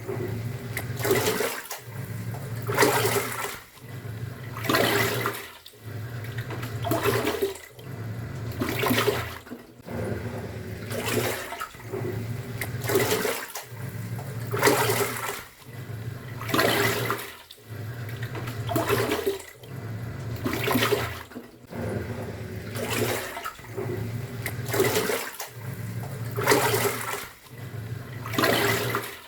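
Top-loading washing machine in its wash cycle: the pulsator motor hums and churns the water in strokes, reversing about every two seconds with a short pause between each, each stroke ending in a surge of sloshing.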